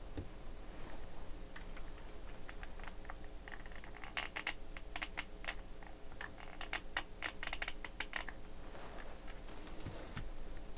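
A quick, irregular run of small clicks and taps from about four to eight seconds in, from a hot glue gun being worked and handled to tack sub-C NiCd cells together.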